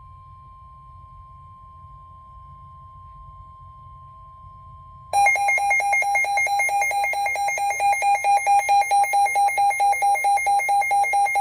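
Emergency Alert System alert: a faint steady tone over a low hum, then about five seconds in a loud, rapidly pulsing electronic alarm tone sets in suddenly. It is the attention signal that heralds the severe thunderstorm warning broadcast.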